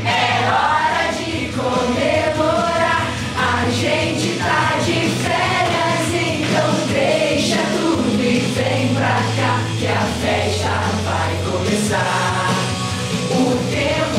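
A song with a group of voices singing over a steady drum beat and sustained bass notes.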